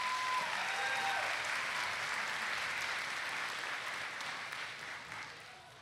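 Audience applauding, loudest at first and dying away over the last couple of seconds.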